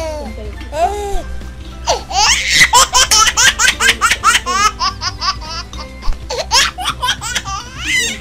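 High-pitched laughter: a long run of quick 'ha' pulses, about four a second, starting about two seconds in and going on until near the end, over a low steady hum.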